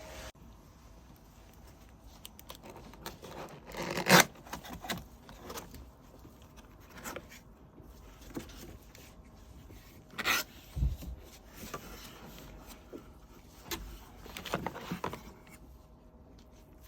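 Laptop box and packaging being handled and opened: scattered clicks and rubbing, with three louder scraping, tearing strokes about four, ten and fifteen seconds in.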